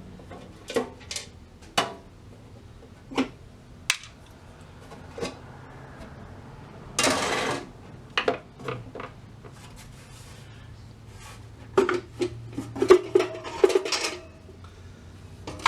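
Metal parts of a vintage jawbreaker vending machine clinking and knocking as it is taken apart by hand: scattered single knocks, a brief scrape about seven seconds in, and a quick run of clanks near the end.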